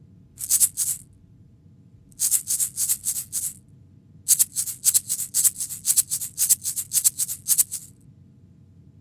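Rhythmic shaker strokes in three runs: a short run of three, then about six, then a longer run of about fifteen at roughly four strokes a second. Each stroke is a brief, high rattling hiss.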